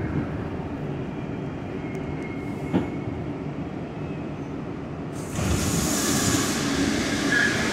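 R62A subway car running through a tunnel: a steady rumble of wheels on rails, with one sharp click about three seconds in. About five seconds in, a louder hissing rush joins the rumble.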